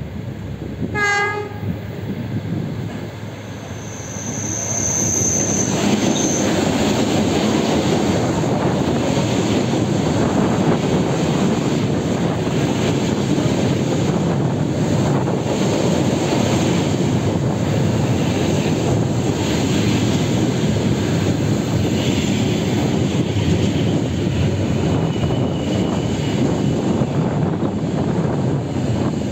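An ЭД4-series electric commuter train gives a short horn blast about a second in. It then runs in along the platform with a loud, steady rumble of wheels and rail-joint clacks, and a brief high wheel squeal about five seconds in.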